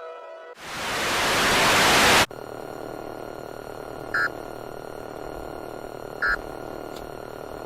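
Emergency alert broadcast audio: a burst of static swells louder for about a second and a half and cuts off sharply. A low steady droning hum follows, with two short beeps about two seconds apart.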